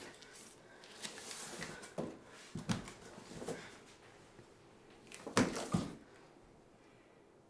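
A person moving on hands and knees across a tiled bathroom floor: scattered knocks, bumps and rustles. The loudest cluster comes about five and a half seconds in.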